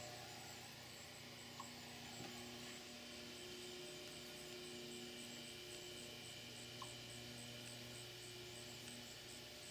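A rapid, evenly spaced series of faint high chips, an eastern chipmunk's barking alarm call, over a steady low electrical hum that is the loudest sound.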